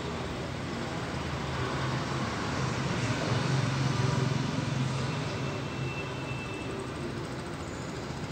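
Motorcycle engine running with a low hum over steady street noise, growing louder about three to four seconds in and then easing off.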